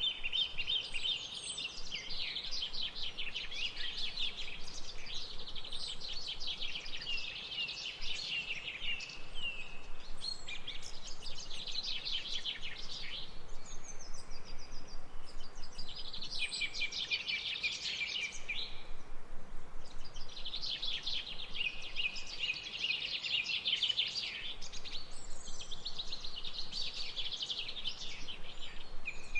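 Birds singing: phrase after phrase of fast trills and chirps, each a few seconds long with brief gaps, over a faint steady background hiss.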